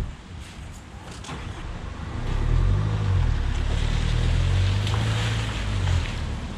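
A car door slams shut, then the Fiat Freemont SUV's engine runs as it drives away, a steady low rumble from about two seconds in that eases off near the end, with wind noise on the microphone.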